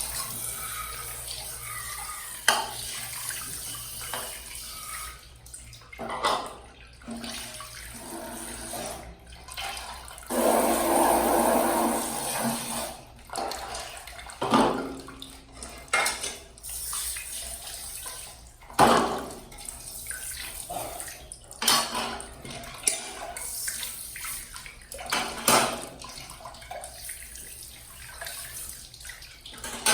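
Tap water running into a sink as things are washed, with repeated knocks and clatter of items being handled; the water gets louder for a couple of seconds about ten seconds in.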